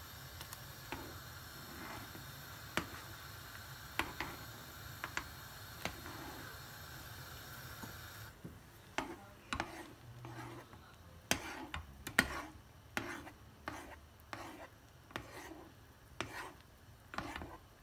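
Spoon stirring soup in a saucepan, faint scrapes and clicks against the pan at an irregular pace, coming more often in the second half; the beaten egg is being stirred into the soup. A steady faint hiss stops about eight seconds in.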